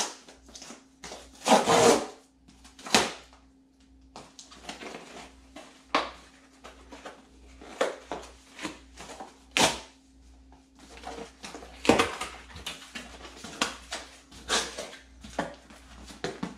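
Cardboard FedEx shipping box being opened and handled by hand: irregular scrapes, rustles and knocks of cardboard, the loudest about two and three seconds in and again around ten and twelve seconds.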